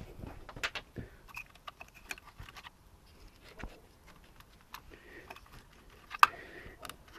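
Light scattered clicks and rattles of hands handling plastic electrical connectors on a Mercedes M272 V6 engine, with one sharp, louder click about six seconds in.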